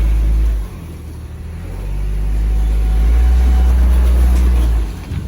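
Jeep engine pulling under load while crawling over rock, a low steady drone. It swells briefly at the start, dips, then rises again from about two seconds in and drops off near the end.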